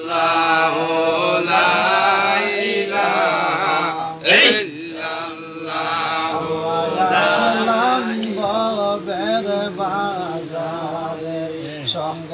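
A man's voice chanting a zikr, an Islamic devotional chant, in long, wavering held notes with melodic ornaments.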